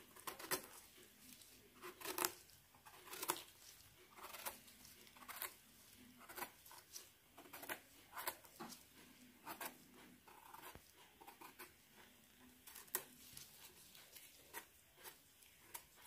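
Footsteps crunching on the forest floor, a steady walking pace of about one step a second.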